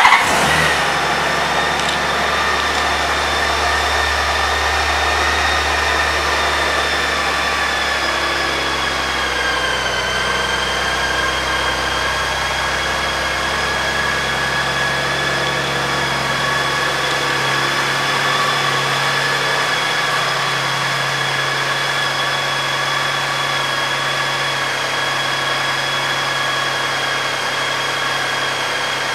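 2007 Honda Gold Wing's flat-six engine catching suddenly and then idling steadily, its deepest rumble dropping away about eighteen seconds in.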